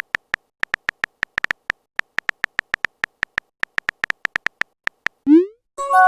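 Chat-app sound effects: a rapid, irregular string of short, high beeps like typing, then a quick rising swoop and a bright chord-like chime near the end, the usual message sent and message received signals.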